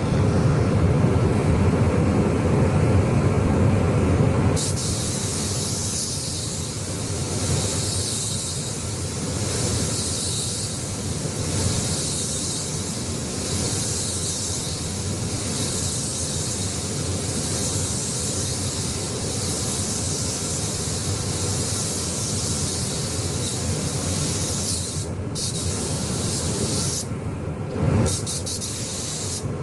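Paint spray gun hissing steadily as it sprays paint. The hiss starts about four seconds in and cuts out briefly twice near the end, over a steady low rumble.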